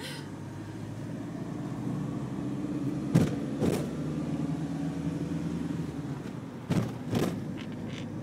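Motorhome engine and road noise heard from inside the cab while driving, a steady low drone. A few short knocks cut through it, two about three seconds in (the first the loudest) and two about seven seconds in.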